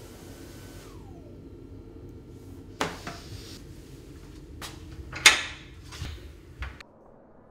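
Toilet-cubicle door and latch being handled: about five sharp knocks and clicks, the loudest a little past halfway, over a steady low hum that cuts off suddenly near the end. A short falling tone sounds about a second in.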